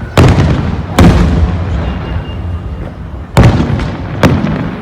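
Aerial firework shells bursting: four loud booms, two in quick succession near the start and two more about three seconds later, each followed by a long rolling rumble.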